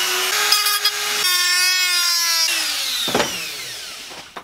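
Handheld rotary tool running at speed with a high steady whine that steps slightly in pitch. About two and a half seconds in it is switched off and winds down with falling pitch. A single knock on the bench comes as it spins down.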